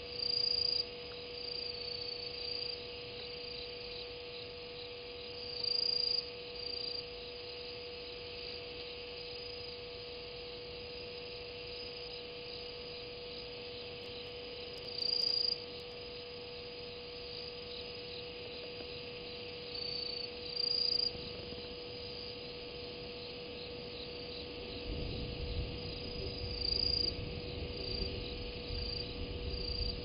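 Night chorus of crickets: a steady high shrill with louder short trills every few seconds, over a steady electrical hum. A low rumble comes in near the end.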